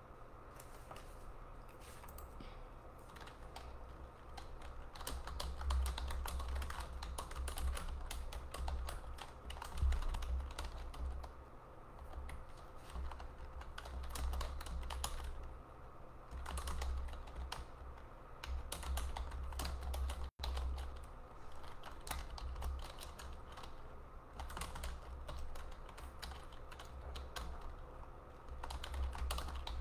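Typing on a computer keyboard close to the microphone: irregular key clicks in bursts, with low thumps carried through the desk.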